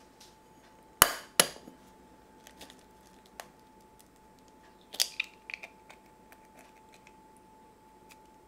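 An egg rapped twice on the rim of a ceramic bowl to crack it: two sharp knocks less than half a second apart. About four seconds later comes a quick run of lighter clicks and clinks of eggshell against the bowl as the shell is opened to separate the white from the yolk.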